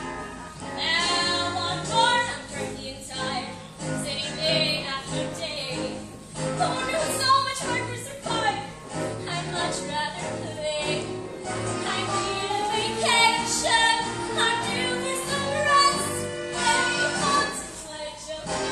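A woman singing a musical theatre number over instrumental accompaniment.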